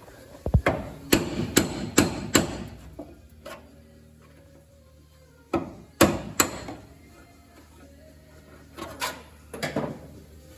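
Hammer blows on metal in three short bursts: about five quick strikes, a pause, three more, then about four, each with a brief ringing tail.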